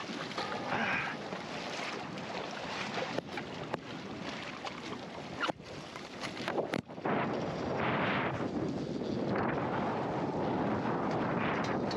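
Wind buffeting the microphone over choppy seawater, a steady rushing noise that drops out briefly twice around the middle and then comes back louder.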